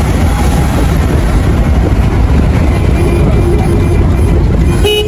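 Car driving along a road, heard from inside, with a loud steady rumble of engine, tyres and wind. A faint held tone comes in about three seconds in.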